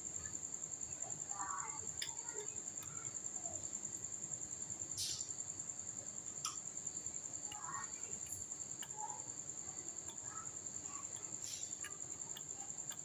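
A cricket trills continuously in a steady, high, finely pulsing tone. A few faint metallic clicks come from hand tools on the generator's valve rocker arm.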